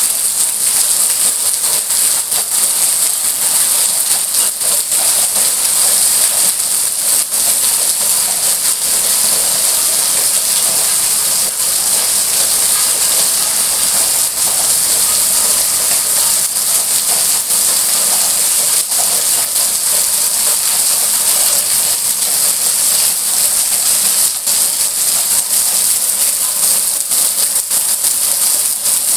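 Steady rain falling, an even dense hiss with scattered drop ticks.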